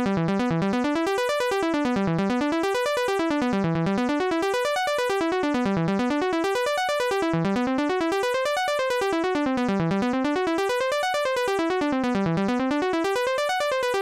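Logic Pro Retro Synth software synthesizer playing a latched arpeggio: a rapid, even stream of notes climbing up and back down over an E minor chord. Extra notes are added one by one in Add latch mode, so each sweep reaches higher.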